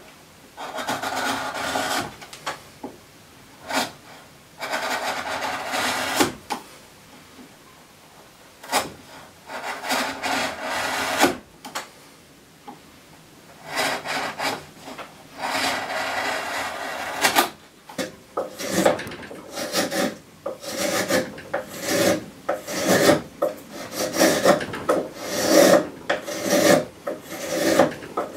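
A chisel paring curved cuts into a softwood block, in separate shaving strokes of a second or two each with pauses between them. About two-thirds of the way through, this gives way to a spokeshave shaving the curve in quick, short strokes one after another.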